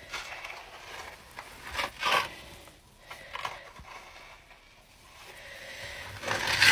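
Small metal trowel scraping and smoothing wet plaster mortar over a brick stove wall, in several short uneven strokes, the longest and loudest near the end.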